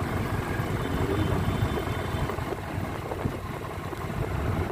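Steady low rumble of idling vehicle engines and traffic, with no sharp events.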